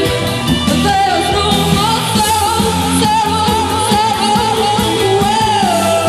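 Live rock band with a female lead vocal holding one long note for several seconds, dropping in pitch near the end, over bass guitar, electric guitar and drums.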